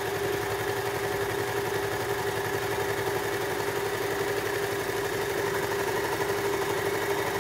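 Baby Lock Victory overlocker running steadily at speed, sewing a three-thread narrow overlock seam with its knife trimming the fabric edge: an even mechanical hum over a fast stitching rhythm.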